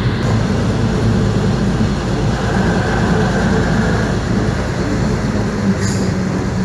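Skoda 706RT six-cylinder diesel engine of a 1977 Jelcz 272MEX city bus running steadily while the bus drives, heard from inside the passenger cabin with road noise. A short sharp click sounds near the end.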